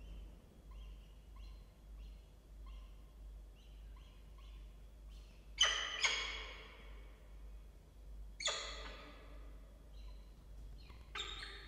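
Peregrine falcon chicks begging as an adult feeds them at the nest. There is a run of faint, short, high peeps, then three loud harsh calls about three seconds apart, the first the loudest.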